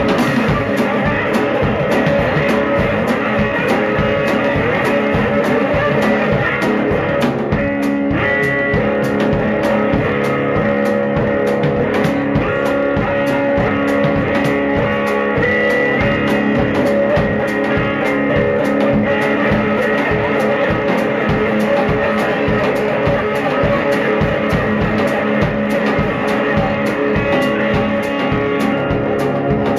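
Live blues played on a hollow-body electric guitar with a drum kit keeping a steady beat.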